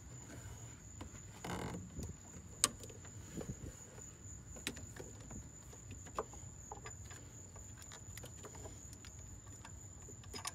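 Small hand wrench being worked on a power steering pump bolt under the hood: a few light, separate metallic clicks and a brief scrape against a steady low hum.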